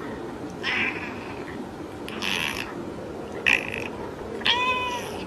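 Domestic cat meowing four times in short, high-pitched calls spaced about a second apart.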